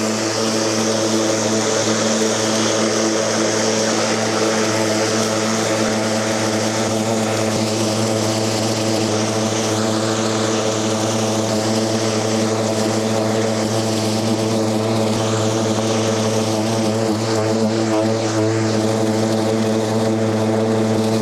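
Milwaukee battery-powered lawn mower running on full power while cutting and collecting grass: a steady pitched hum from the motor and blade over an even rushing noise.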